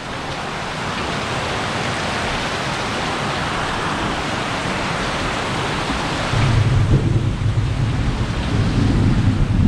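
Heavy tropical rain pouring down in a steady hiss. About six seconds in, a deep rumble of thunder joins and grows louder toward the end.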